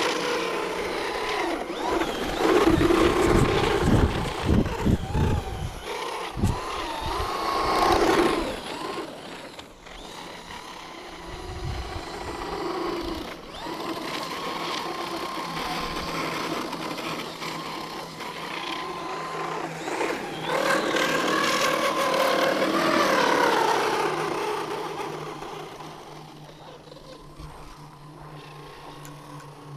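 Traxxas Slash 4x4 electric RC truck's motor and drivetrain whining, the pitch rising and falling with the throttle as it drives through snow. Heavy low thumps come in the first several seconds and again about a third of the way in, and the sound drops to a quieter steady hum over the last few seconds.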